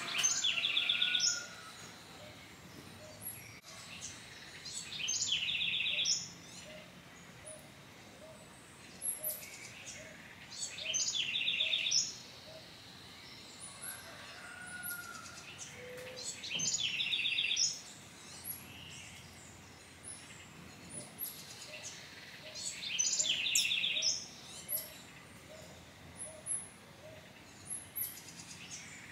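A bird singing the same short phrase again and again, about every six seconds, each phrase a quick run of high repeated notes lasting a second or so; fainter chirps come between the phrases.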